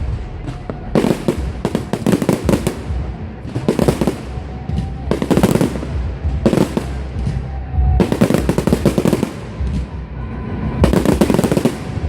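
Fireworks display: a rapid series of crackling bangs and pops coming in clusters every second or two.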